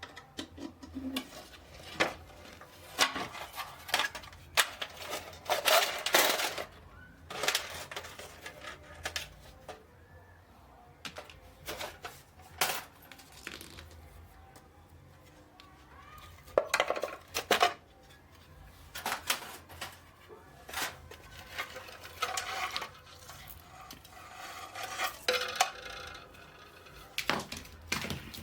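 Irregular clinks, clicks and clatter of small hard parts and tools being handled and set down while a flood light is assembled.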